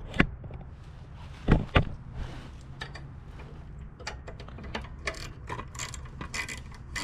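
Three sharp knocks of metal tools, then a socket ratchet clicking in quick runs from about four seconds in. It is working loose the 10 mm bolts that hold the carburetor on a lawnmower engine.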